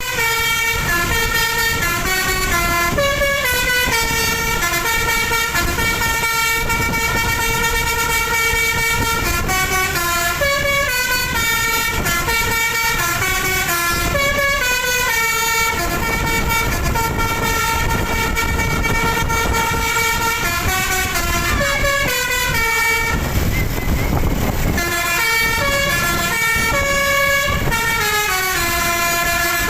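Bus telolet horn: a set of Basuri multi-tone air horns playing a long, continuous run of stepping melodic notes. About 23 seconds in, the horns break off for a second or two under a low rumbling noise, then resume.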